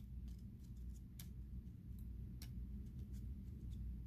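Faint, irregular clicks from old trading cards being peeled apart and handled while checking for cards stuck together, over a low steady hum.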